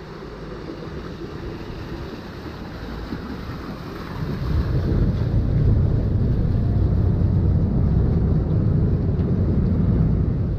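Canal express boat's engine rumbling deep and steady with water rush and wind noise, growing much louder about four seconds in.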